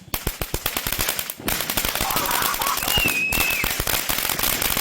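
Consumer firework going off with a dense, rapid crackle of small pops, breaking off briefly twice.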